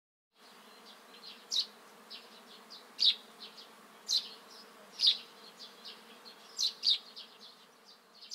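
Outdoor nature ambience: short high chirps, one or two a second, over a faint steady low hum.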